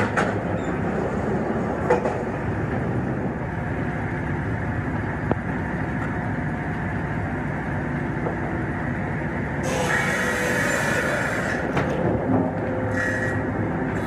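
Sawmill conveyor machinery running steadily, with a few sharp knocks in the first half and a brighter, higher clatter for a couple of seconds near the end.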